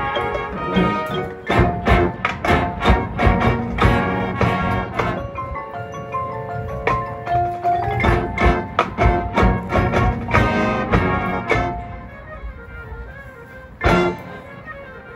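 Marching band music in a percussion-led passage, dense with sharp struck notes. About twelve seconds in it thins out and quiets, and a single loud hit comes near the end.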